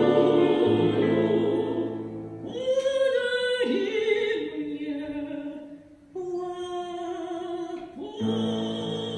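Female vocal trio singing in classical style with guitar and piano accompaniment. After a sustained chord over low accompaniment notes, the accompaniment drops out about two seconds in and a single vocal line carries on with vibrato. The full voices and accompaniment return near the end.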